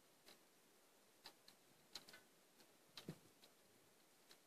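Near silence broken by faint, irregular clicks and small knocks, about a dozen of them, with the loudest pair about three seconds in. They come from hand work on the borehole's wellhead pipe fittings.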